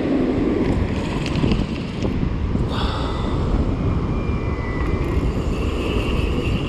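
Wind buffeting the microphone over the steady rumble of breaking surf. A faint thin high whine comes in about halfway through.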